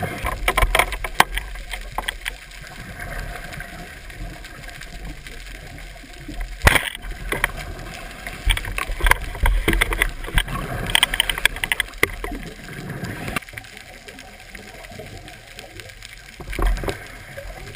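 Underwater noise heard through a GoPro's waterproof housing: a low muffled rumble with irregular clicks and knocks and short noisy bursts, and one sharp crack about seven seconds in.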